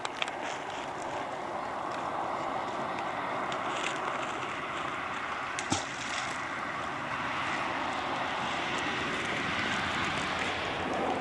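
Steady rushing noise of wind and small waves on a lakeshore, with a faint click at the start and another about six seconds in.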